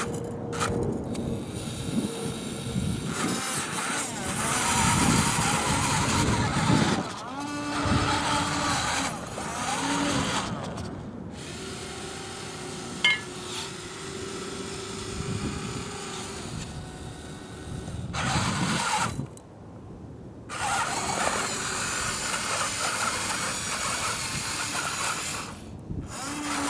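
Electric motors and gearboxes of a radio-controlled toy wheel loader whining in short runs as it lifts, reverses and drives. The pitch rises and falls as the motors start and stop, with two brief pauses.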